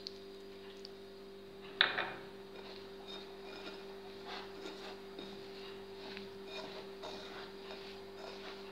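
Hands rubbing and kneading damp semolina in an enamel bowl: soft, scratchy rustling made of many small crackles, with one sharp knock about two seconds in. A steady low hum lies underneath.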